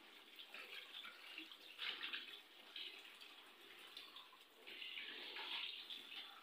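Water running from a tap into a sink, faint and uneven, surging louder every second or so.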